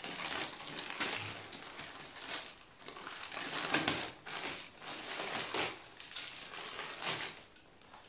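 Clear plastic bag crinkling and rustling in irregular bursts as a coiled orange hose is worked out of it.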